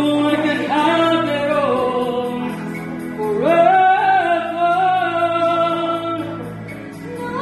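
A woman singing a slow melody over backing music, holding long notes that slide between pitches.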